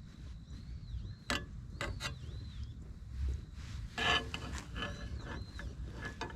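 A few sharp clicks and knocks from something being handled, the loudest cluster about four seconds in, over a low rumble. A faint whistled bird call repeats several times in the background.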